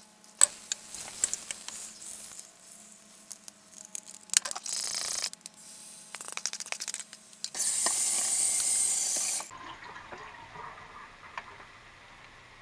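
A paper towel is rubbed around the inside of an empty nonstick skillet, with rustling and small knocks. Pancake batter is then poured into the hot skillet and sizzles. The sizzle is loudest for about two seconds a little past halfway, then settles to a softer, steady sizzle.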